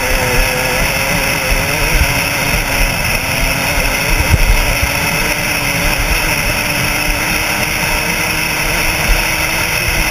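KTM 200 SX two-stroke dirt bike engine running steadily at speed, with heavy wind buffeting on a helmet-mounted camera's microphone.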